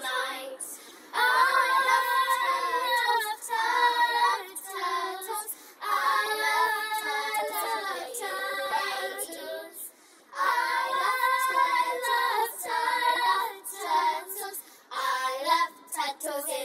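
A single high voice singing a slow song, line by line, with short breaths between phrases.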